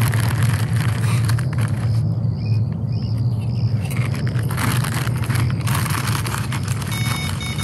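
Crinkling of a crisp packet as chips are taken from it, over a steady low rumble. Near the end a carp bite alarm starts up with rapid high beeps as a fish takes line.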